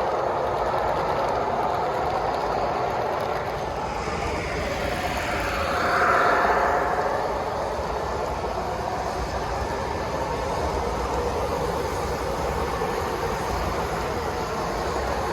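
O-gauge three-rail model trains running on a layout: a steady rolling rumble of wheels on track, swelling louder as one train passes close about six seconds in, then easing back.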